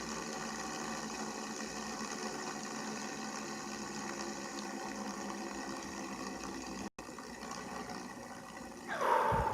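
Fidget spinner whirring steadily as it spins on its bearing. A brief louder sound comes in near the end.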